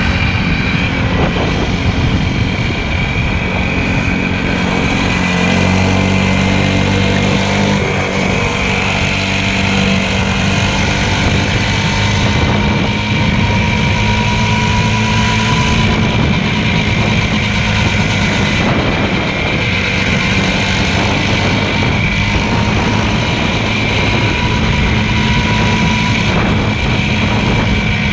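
Motorcycle engine running at a steady speed, its note holding nearly constant with only slight drifts in pitch, over a constant hiss.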